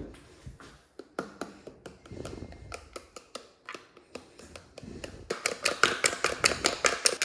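Kitchen utensils tapping and clicking: scattered taps at first, then from about five seconds in a quick, even run of louder clicks, about seven a second.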